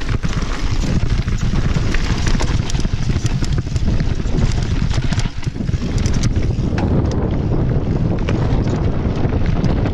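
Wind buffeting the microphone of a mountain biker's camera during a fast descent on a rough dirt trail, a dense rumble throughout. Frequent short rattles and clicks from the bike and tyres jolting over the ground.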